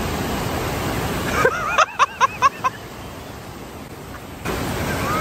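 Steady rush of whitewater pouring out of a large steel culvert pipe. About a second and a half in, the rushing drops away and a quick run of about six high, arching chirps sounds; the rushing returns near the end.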